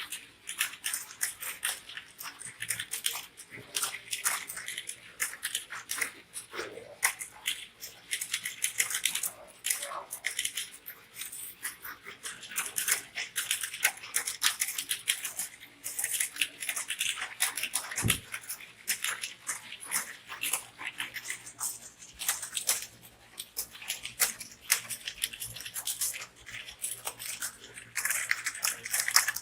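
Computer keyboard typing: rapid key clicks, many a second, as in a timed typing test.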